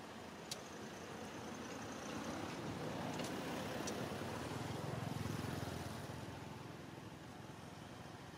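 Low rumble of a passing motor vehicle. It swells over a couple of seconds, is loudest about five seconds in, then fades away.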